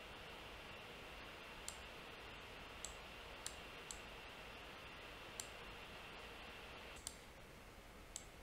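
About seven sharp computer mouse clicks, spaced unevenly, over a faint steady hiss.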